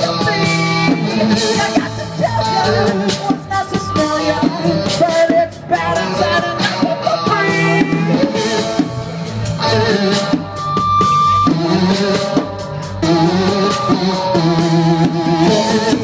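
A live band playing rock music: a singer over guitar and drum kit.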